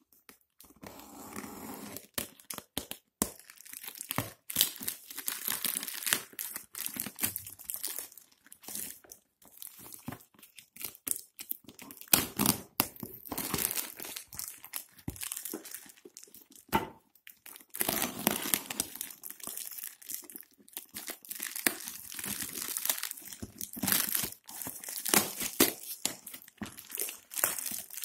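Plastic courier mailer being punctured with a pen and torn open by hand, the plastic film crinkling and ripping in irregular bursts.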